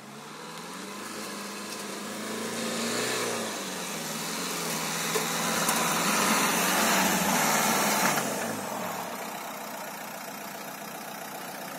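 Renault Duster AWD's 1.5 dCi diesel engine labouring up a sandy slope, with sand hiss from the spinning tyres. The engine grows louder to a peak a little past halfway, then drops back as the car fails to make the climb.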